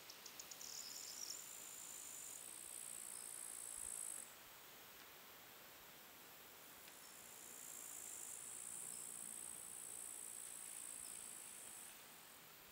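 Bush-crickets stridulating: a faint, high, thin buzzing trill that runs for a few seconds, breaks off around four seconds in and starts again a couple of seconds later. A short run of quick chirps comes near the start.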